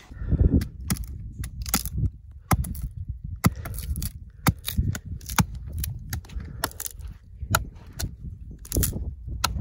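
Wood fire crackling with sharp, irregular pops and snaps, several a second, over a steady low rumble.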